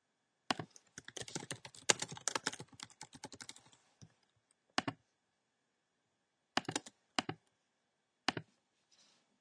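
Typing on a computer keyboard: a quick run of keystrokes lasting about three seconds, followed by a few separate clicks.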